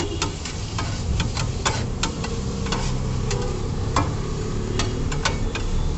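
Street-food cooking at a stall: a metal spatula clinks and taps irregularly on a hot griddle, a couple of times a second, over a steady sizzle of frying food.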